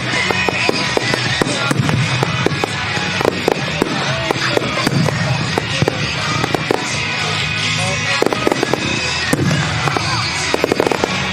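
Aerial fireworks from a music starmine going off in a rapid string of sharp bangs and crackles, with dense bursts of crackling near the end, over music playing from the show's loudspeakers.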